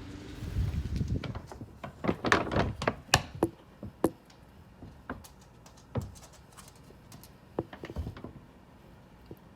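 Handling noise: a quick cluster of light clicks and knocks about two to three seconds in, then single clicks every second or so. A low rumble fades out near the start.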